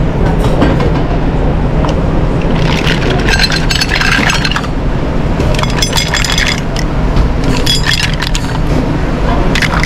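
Mussel shells clattering and clinking as they are tipped out of a stainless steel saucepan onto ceramic plates, in several runs of clinks, the longest about three seconds in. A steady low hum runs underneath.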